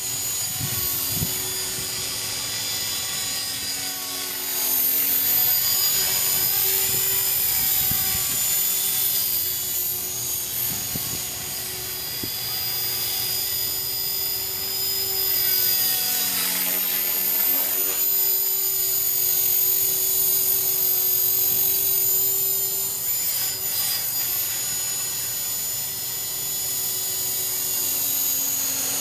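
Electric Align T-Rex 450 Pro RC helicopter in flight: a high, steady motor whine over the rotor hum, growing louder and softer as the helicopter moves about.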